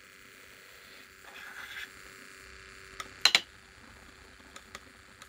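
Pulse-motor-driven maglev rotor spinning on its ring-magnet bearings, giving a faint steady hum that stops about three and a half seconds in. A cluster of sharp clicks just before that is the loudest sound, followed by a few light ticks.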